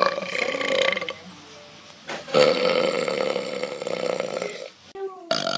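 A person belching loudly: one belch tails off about a second in, then after a short pause comes a long, drawn-out belch of about two and a half seconds, and another begins near the end.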